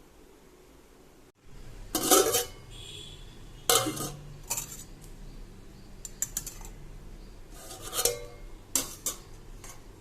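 Kitchen dishes and utensils clattering: a string of short clinks and knocks as vessels and spoons are handled and set down, over a faint low hum.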